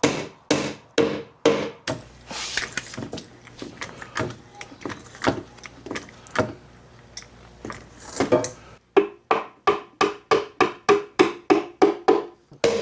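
Repeated hammer blows on metal with a short ring after each, at about two strikes a second. For several seconds in the middle the strikes turn sparse and irregular, then a faster, even run of blows starts again near the end.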